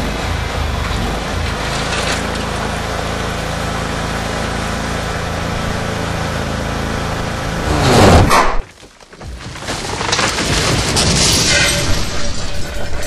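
Lawn tractor engine running steadily. About eight seconds in, a loud surge ends in a sudden cut-off, and then a noisy sound builds back up.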